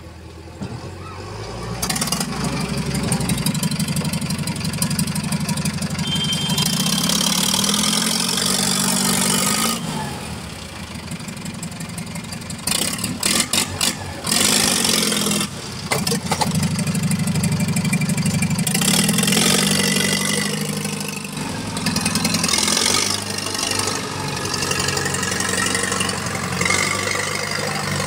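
Diesel engines of a tractor and a JCB backhoe loader running and revving as the backhoe pushes the tractor to bump-start it. The engine noise jumps up sharply about two seconds in, then rises and falls in pitch several times, with two brief breaks in the middle.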